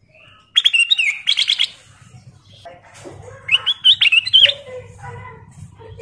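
Ruby-throated bulbul (kutilang emas) singing two bursts of quick, bright warbling notes, the first about half a second in and the second about three and a half seconds in.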